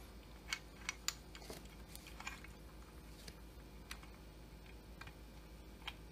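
Faint, irregular clicks and taps of metal parts as a chainsaw piston and wrist pin are worked by hand against the connecting rod, the pin resisting being lined up. The sharpest clicks come in the first second or so.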